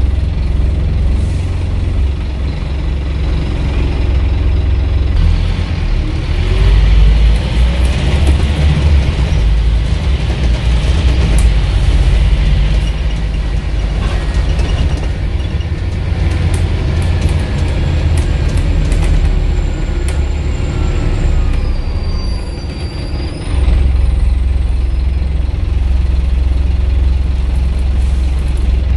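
Scania N230UB single-decker bus's engine and drivetrain heard from inside the saloon while it drives: a steady low drone, with a whine rising in pitch about six seconds in and another falling slowly later on. The drone drops briefly about 22 seconds in, then comes back to full level, with light interior rattles throughout.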